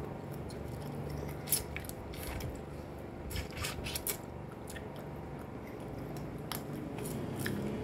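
Close-up eating sounds: chewing and biting, with a metal fork clicking and scraping against a glass plate as spaghetti is twirled.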